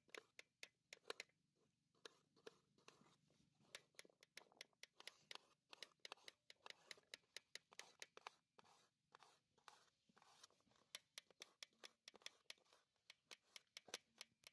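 Knife chopping apple into small pieces on a metal platter: a run of faint, crisp cuts and taps, a few a second, with short pauses.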